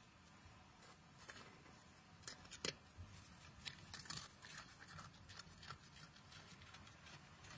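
Red fox chewing a hard pretzel: faint, irregular crunching clicks, the sharpest pair a little over two seconds in.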